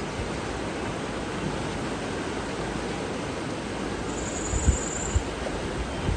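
Steady rushing of water, with one high, thin bird note held for about a second about four seconds in. Low thumps of wind buffeting the microphone come near the end.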